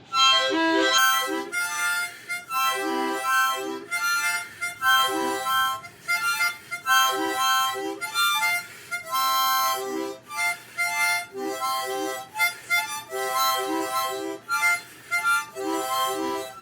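A harmonica playing a solo intro in short, rhythmic, repeated chords, which starts and stops abruptly.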